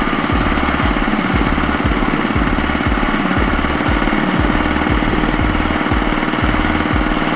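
Diesel engines of a two-wheel walking tractor and a Kubota combine harvester running together, with a steady rapid chugging and a low pulsing about twice a second.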